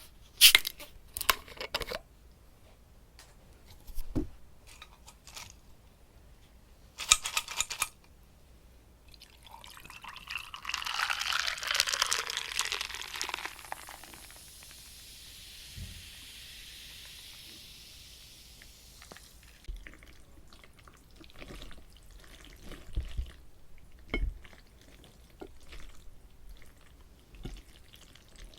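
Sharp clicks and taps of utensils on dishes, then a wet liquid sound for about four seconds in the middle, followed by a soft hiss and scattered small wet ticks of food being handled and eaten.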